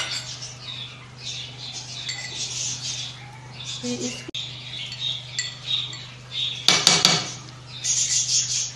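Utensil and pan sounds at a nonstick frying pan of fish masala: intermittent scraping and clinking, with a quick rattle of knocks about seven seconds in, over a steady low hum.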